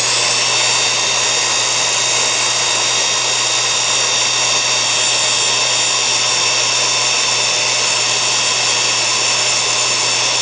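Vintage Milwaukee 0950-1 half-inch corded electric drill running free in reverse with no load: a steady motor whine with many high tones over a hiss, its pitch settling as it comes up to speed right at the start. It runs a little slower than in forward, because the field is switched for reverse while the brushes stay timed for forward rotation.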